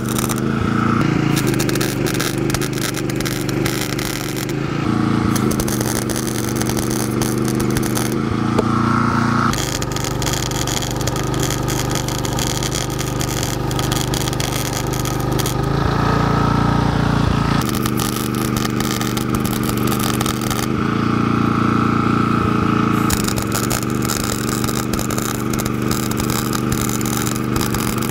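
Wire-feed welder arc crackling and buzzing as steel square tubing is welded, stopping for a moment several times between runs, over a steady low hum.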